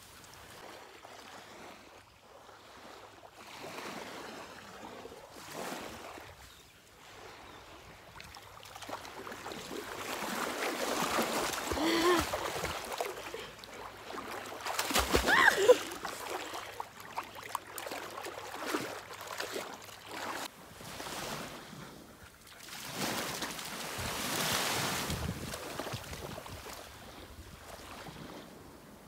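Small waves lapping at the shore, with wind gusting on the microphone so the noise swells and fades. A couple of short, rising high cries come about halfway through.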